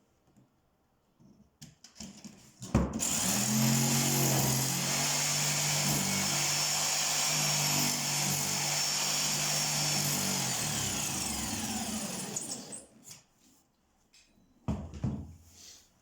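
Power drill running for about ten seconds, spinning up as it starts and winding down as it stops. A couple of short knocks follow shortly after.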